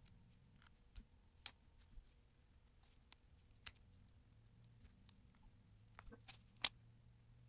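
Near silence over a faint low hum, broken by scattered small clicks and ticks of wires and connectors being handled, with the sharpest click about six and a half seconds in.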